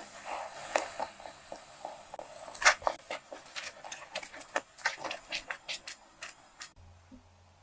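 Thick hawthorn paste bubbling in a nonstick pan over high heat, with irregular wet pops and plops. Then a silicone spatula stirs sugar into the paste with soft scraping and sticky clicks. The sound cuts off suddenly about a second before the end.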